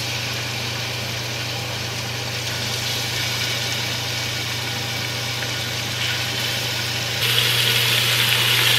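A steady low hum with a hiss, then about seven seconds in a louder sizzle starts as strips of raw beef go into the hot stainless inner pot of an Instant Pot to brown.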